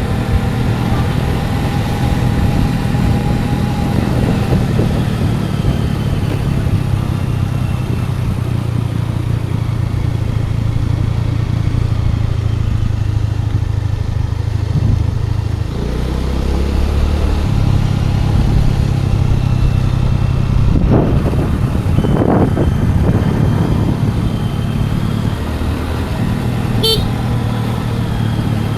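Scooter engine running steadily under way, with road and wind noise. The engine note drops for about two seconds just past the middle, then picks back up.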